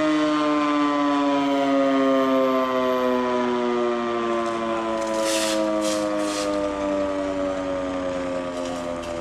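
Fire station's roof-mounted alarm siren calling out the volunteer firefighters, one steady wail slowly falling in pitch.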